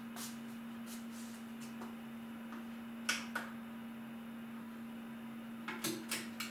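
A few sharp plastic clicks and clacks as a music player is handled and set up: one near the start, a pair about three seconds in, and three quick ones near the end. A steady low hum runs underneath.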